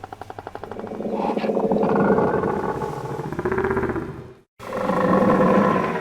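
Mother Longlegs giant spider creature sound effect: a rapid clicking that runs into a long, growling call, then a second call after a brief silent break.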